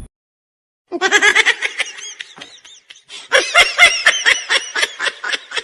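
High-pitched laughter in rapid pulsing bursts, in two bouts: it starts about a second in, eases, then breaks out again louder and trails off near the end.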